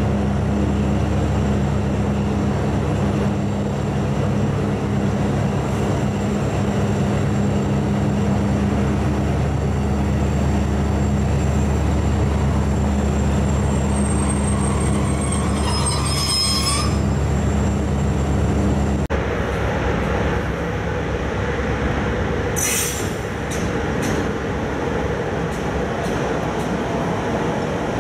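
Passenger train hauled by an electric locomotive rolling slowly past: a steady rumble of wheels on rails with an electrical hum. The wheels squeal on the rails about halfway through and briefly again a few seconds later. The sound changes abruptly about two-thirds of the way in.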